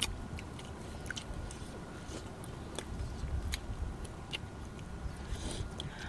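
People chewing and biting food close to the microphone, with scattered small clicks and a low steady rumble underneath.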